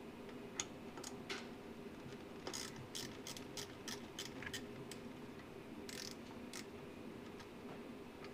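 Small socket ratchet clicking in short irregular runs while loosening screws inside a battery charger's case, over a steady low hum.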